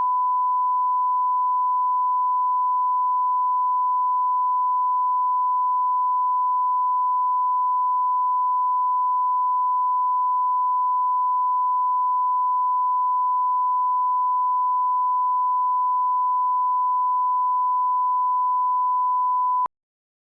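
Steady 1 kHz broadcast line-up test tone, one pure unchanging pitch at the head of a programme tape, used for setting audio levels. It cuts off suddenly with a faint click shortly before the end.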